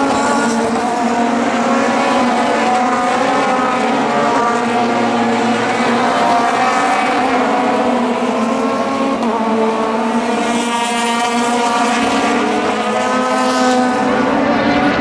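Several CN-class sports-prototype race cars running at high revs, their engine notes overlapping as the pack goes by. One engine note climbs in pitch about ten seconds in.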